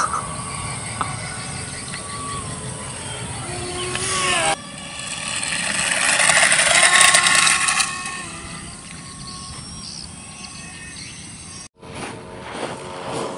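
A micro foam RC airliner's small electric motor and propeller whining, its pitch sliding up and down with the throttle. The sound swells loudest in the middle, as on a takeoff run, and breaks off abruptly twice.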